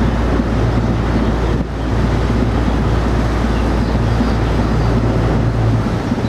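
An inland cargo ship's diesel engine runs with a steady low hum as the ship pulls away from the lock under power. Wind rushes on the microphone over the top of it.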